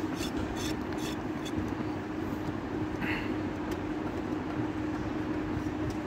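A steady motor drone with a constant hum. In the first second and a half come a few quick taps and scrapes of a steel knife on a wooden chopping block.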